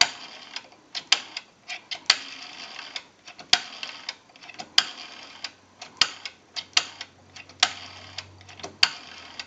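Rotary dial of an Automatic Electric 3-slot payphone being dialed: a string of sharp, unevenly spaced clicks as the dial is pulled round and let spin back, number after number.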